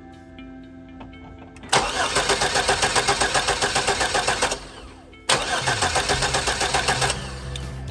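Chevy S-10 pickup's starter cranking the engine in two attempts, a fast, even chugging of about six beats a second, with the engine never catching. The truck won't start because its fuel pump has failed.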